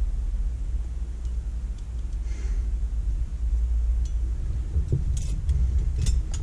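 Small metal parts clicking and clinking as springs and carbon brushes are fitted by hand into the brush holder of a Holley electric fuel pump, with a few sharp clicks in the second half, over a steady low rumble.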